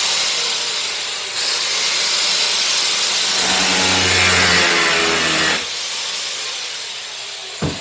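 Power grinder cutting a slot into the head of an old stripped cabinet-hinge screw, a loud steady grinding hiss that drops off about five and a half seconds in.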